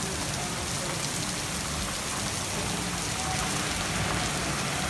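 Heavy rain pouring down onto asphalt pavement, a steady dense hiss of a downpour.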